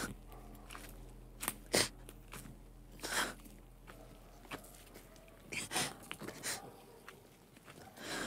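A woman sobbing: short, ragged gasping breaths and sniffs at irregular intervals, over a faint steady low hum.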